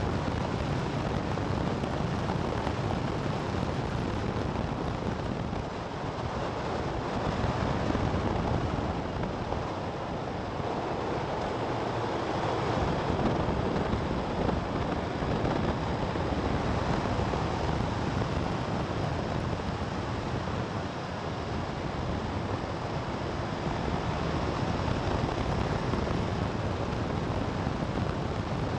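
Steady wind rush on the microphone mixed with road and engine noise from a vehicle driving at speed, rising and falling slightly as it takes the bends.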